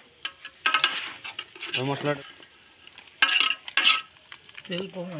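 A metal ladle scraping and stirring a thick mutton curry mixture in an aluminium pot, in two loud bursts of strokes, about a second in and again around three seconds in, with shorter pitched sounds between them.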